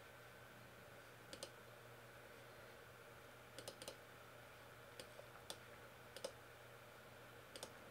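Faint, scattered computer mouse clicks, some in quick pairs or triples, at irregular intervals as fonts are picked from a menu, over a low steady hum.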